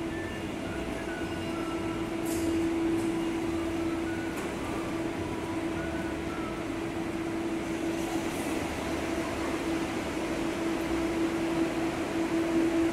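Steady electric machinery hum of a rail station platform, from a running escalator and an electric train standing at the platform. The hum holds one strong low tone over a wash of noise and grows a little louder near the end.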